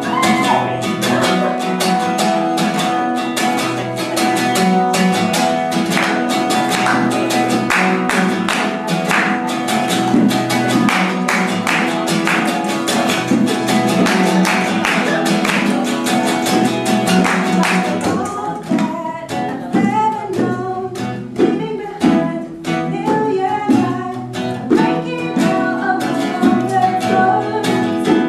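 Background music led by acoustic guitar with a singing voice and an even strummed rhythm. About two-thirds of the way through, the arrangement thins out to a sparser guitar part.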